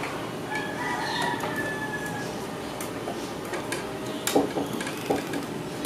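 A few short clicks and knocks from hands working the screwdriver and wiring at the solid state relay inside a heat press's control box, the loudest a little after four seconds in, over a steady background hiss. A faint held tone is heard in the first two seconds.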